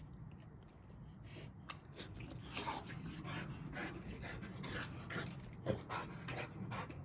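Boxer dog panting in short, irregular puffs while nosing at a water balloon, with one sharper tap a little over two-thirds of the way through.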